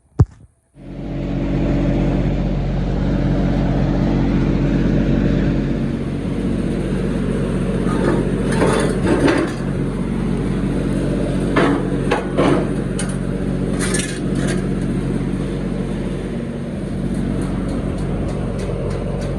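An engine-driven welder running steadily, with several short crackling bursts of tack welding in the middle.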